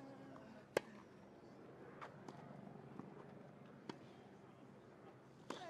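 Tennis rally on a grass court: sharp racket-on-ball strikes, the loudest about a second in and fainter ones from the far end of the court. Near the end a shot comes with a player's short grunt.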